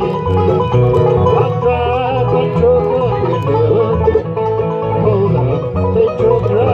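Live bluegrass band playing: banjo picking over acoustic guitar and fiddle, with a steady bass line underneath. Recorded through a cell phone's microphone, which the uploader says makes the sound bad.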